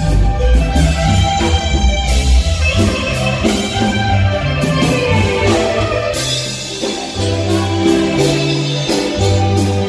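Dance music with a steady beat and a moving bass line.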